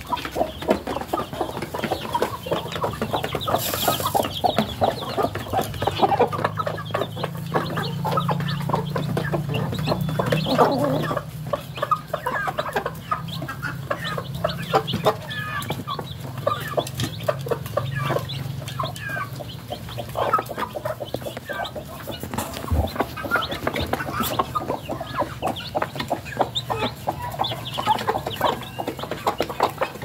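A hen clucking among her chicks, a dense, unbroken stream of short clucks and peeps.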